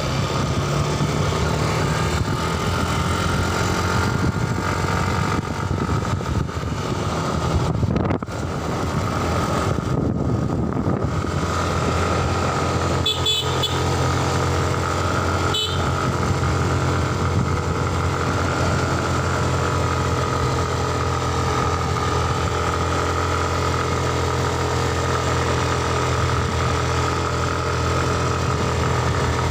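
Yamaha Aerox scooter engine running steadily under way while being ridden uphill, with a brief easing of the sound about eight to eleven seconds in. Two short high-pitched blips come about halfway through.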